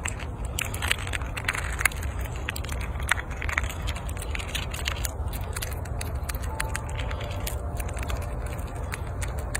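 Fox squirrel gnawing through a walnut's hard shell: quick, irregular crackling and scraping of teeth on shell, thickest in the first few seconds and sparser later.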